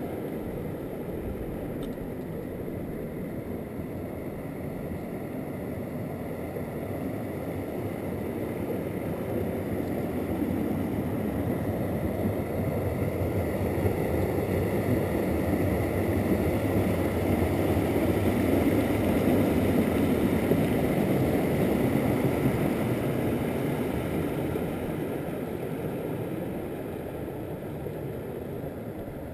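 Mountain stream water running over a small rock cascade: a steady rush that grows louder toward the middle and fades near the end.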